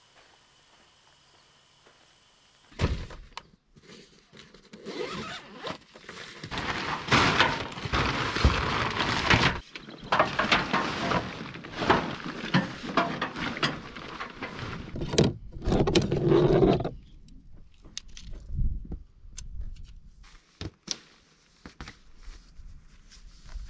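Truck-bed tent fabric rustling and crinkling loudly as the tent is unrolled and spread over the pickup bed, with knocks and sharp clicks, starting about three seconds in. After about seventeen seconds it drops to scattered clicks and taps as the tent poles are fitted.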